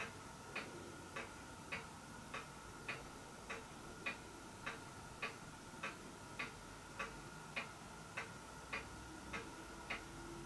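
Faint, evenly paced ticking, a little under two ticks a second, like a clock, over a faint steady hum.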